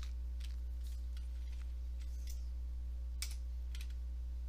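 Scattered keystrokes on a computer keyboard, with a louder key press about three seconds in. A steady low electrical hum runs underneath.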